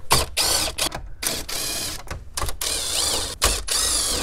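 Ridgid 18V cordless driver backing out the 7 mm dash screws in several short runs, its motor whine rising and falling as the trigger is squeezed and let off.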